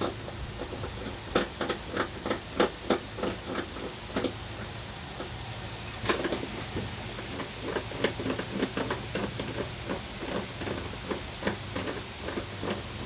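Sharp metallic clicks and knocks of a hand tool loosening the 10 mm bolts of a quad's battery hold-down strap, coming a few a second in uneven runs, with a louder clank about six seconds in.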